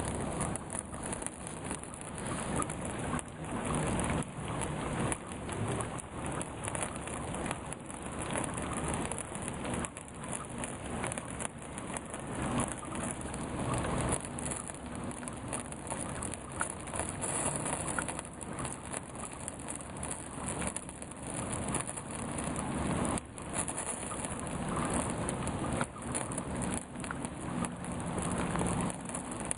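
Steady rain pattering down, with the burning pine-sap candle sizzling as raindrops fall into its melted sap.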